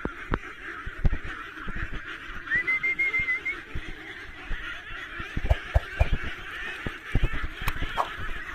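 A flock of ducks and chickens calling continuously, many overlapping calls at once, with scattered sharp clicks.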